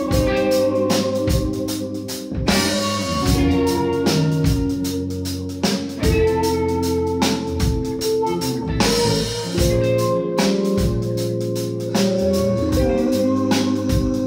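Live band music: a Rickenbacker electric bass line under held, organ-like chords, with regular drum-kit hits.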